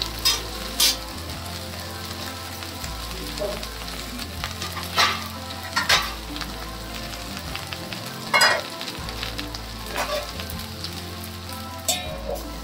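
Chopped okra frying in oil in a kadhai: a steady sizzling hiss with several sharp pops scattered through. Near the end a metal clink as a steel lid goes on the pan.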